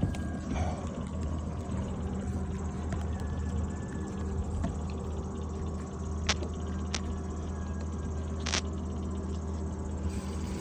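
A boat engine runs steadily with a low, even hum. A few sharp clicks come in the second half.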